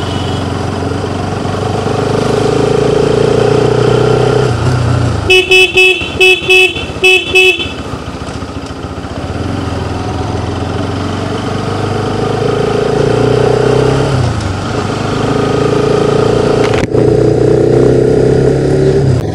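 Motorcycle engine running under way, its pitch rising twice as it accelerates and dropping off each time. A rapid run of about six short, loud horn beeps comes about five seconds in, and a single sharp click comes near the end.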